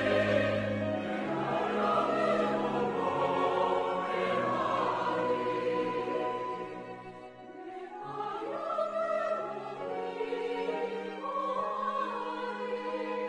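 Mixed church choir singing a slow hymn in Korean, with flute and violin accompaniment. The sound thins briefly about seven seconds in at the end of a phrase, then the choir comes in again.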